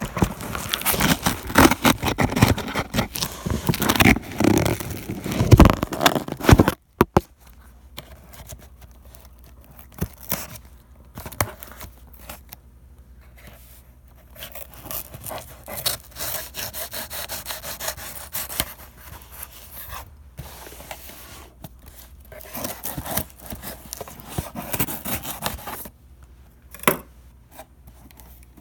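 Cardboard box and packaging being opened and handled: scraping, rubbing and tearing. The sound is dense and loud for the first seven seconds, cuts off suddenly, then goes on as quieter, scattered scrapes and rustles.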